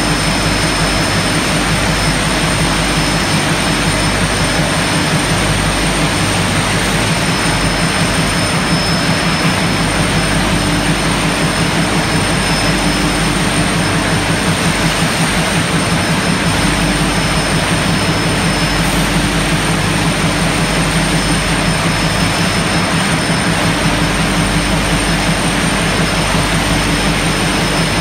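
Steady loud din of factory machinery in an industrial hall: a constant roar with two thin high-pitched whines and a low hum that wavers now and then.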